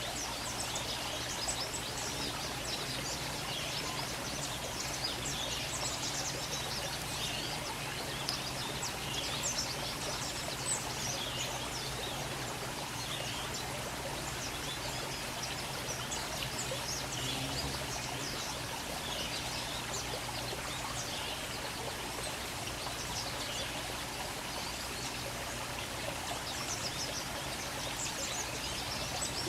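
Small birds chirping, many short high notes in quick succession, over a steady rushing background noise.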